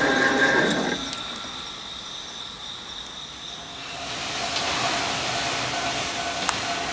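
A steady sound made of several tones cuts off about a second in, leaving faint hiss. From about four seconds in, the running noise of an approaching Enshu Railway electric commuter train rises as a steady rushing sound with a faint whine.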